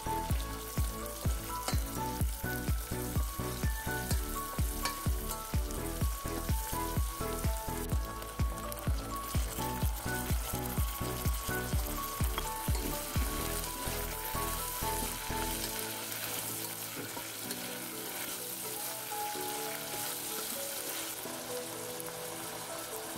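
Sliced chillies, shallots and garlic sizzling as they are stir-fried in oil, then cut green beans sizzling in the pan. Background music with a steady beat, about two a second, plays over it, its bass dropping out about two-thirds of the way through.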